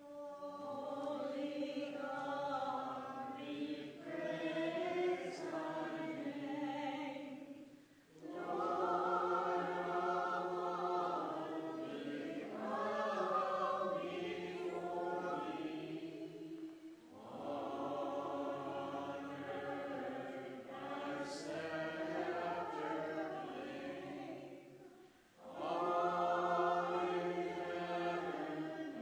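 A group of voices singing the recessional hymn at the end of Mass, in long phrases of about eight seconds with short breaks between them.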